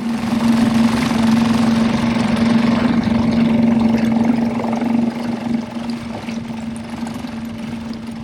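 Small outboard motor on an inflatable dinghy running at a steady pitch under way, with the rush of water and wind; louder for the first five seconds or so, then a little quieter.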